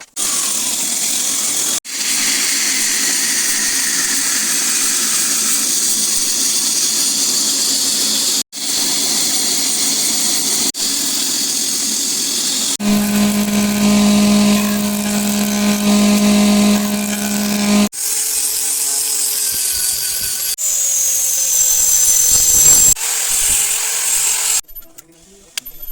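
Power tools cutting and shaping wood, heard as a run of short clips that each start and stop abruptly. Most are a loud, steady, hissy cutting or sanding noise. About thirteen seconds in comes a motor with a steady low hum for about five seconds, and near the end a tool whine that rises and falls in pitch.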